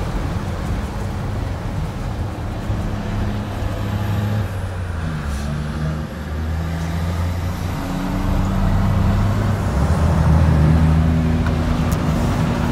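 Volvo triaxle dump truck's diesel engine running while driving, heard from inside the cab over tyre and cab rumble. The engine note shifts up and down in pitch a few times, dips briefly about six seconds in and grows louder from about eight seconds in.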